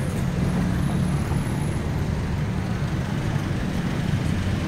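Steady city road traffic: a continuous, fairly loud rumble of passing cars.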